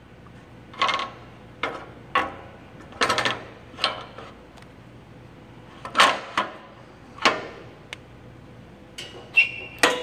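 Irregular sharp metallic clicks and knocks, about a dozen, from the steel pallet arm and quick-release pallet bracket of an Anatol Thunder manual screen-printing press being handled, a few of them ringing briefly near the end.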